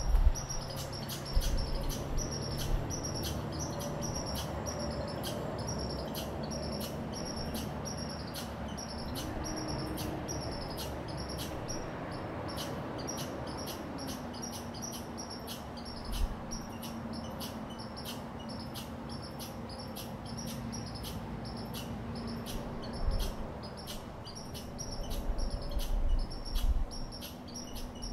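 Chipmunk giving its repeated sharp high 'chip' call, about two chips a second without a break. A faint low hum comes in about halfway, and there are a few low thumps near the end.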